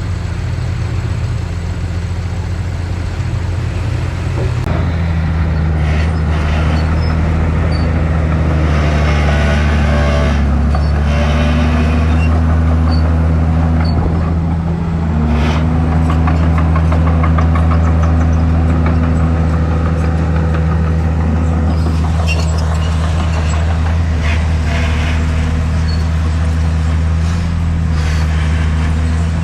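Heavy earthmoving machine's diesel engine running steadily. It picks up about four seconds in and eases off briefly near the middle, with intermittent clanks and rattles over it.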